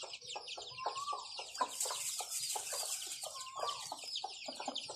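Thai native (village) chicks peeping continuously in rapid, high-pitched cheeps, with a hen clucking low a couple of times, about a second in and again near the end. Straw nesting material rustles under a hand.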